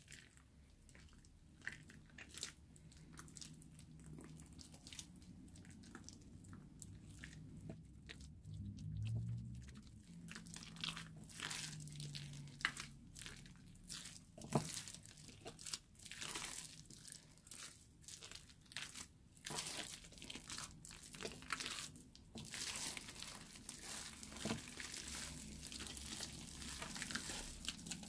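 Fluffy slime with foam beads being kneaded and squeezed by hand in a glass bowl: a run of soft, quiet crackling clicks and squishes, growing denser near the end.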